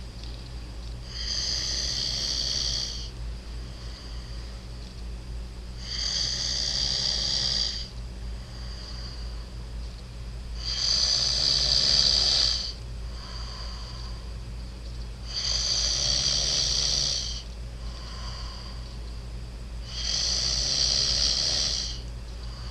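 A sleeping man snoring: five long snores at an even pace, about one every four and a half seconds, with fainter breaths between them.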